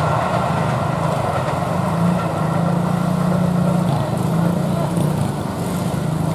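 Small motorcycle engines running close by, a steady engine hum with no break.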